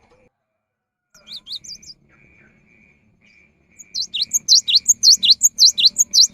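Cinereous tit singing: a few short chirps about a second in, then a loud, fast run of repeated downward-sweeping notes, about five a second, from about four seconds in.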